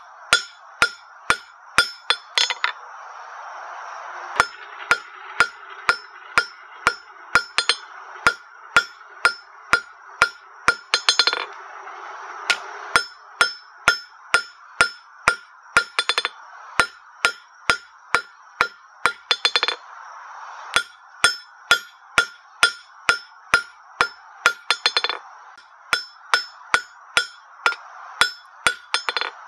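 Hand hammer forging red-hot half-inch square steel bar on an anvil, about two ringing blows a second in runs with short pauses, a few runs ending in a quick cluster of blows. A steady rush sits beneath the strikes.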